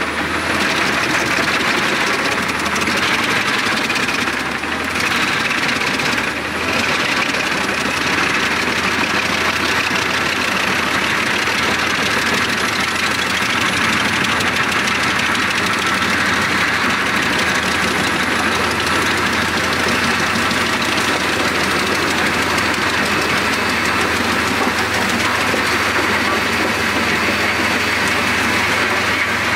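Albach Diamant 2000 wood chipper's 770 hp six-cylinder engine running hard under load while the drum chips whole logs, a loud steady mechanical din. It dips briefly about four and six seconds in, and a thin high whistle fades out about two-thirds of the way through.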